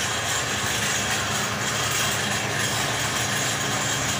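Belt-driven grinding machine running steadily: its electric motor hums and the belt and shaft turn the grinding disc.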